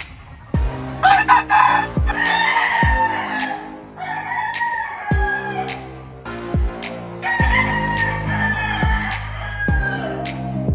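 Roosters crowing, three long crows one after another, over background music with a slow, steady kick-drum beat.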